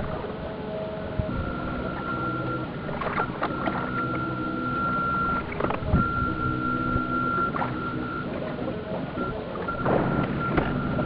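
Onboard sound of an electric radio-controlled model tug under way: a steady high motor whine that breaks off and returns several times, with lower humming tones and scattered clicks and knocks.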